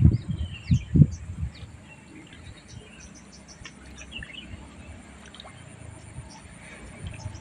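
Birds chirping in short high calls, scattered throughout. A few heavy low thumps on the microphone come in the first second and a half.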